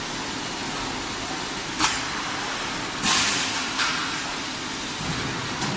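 High-frequency soft crease box welding machine running with a steady fan-like noise. A sharp click comes a little under two seconds in, then a hiss of under a second at about three seconds, and a smaller click near the end.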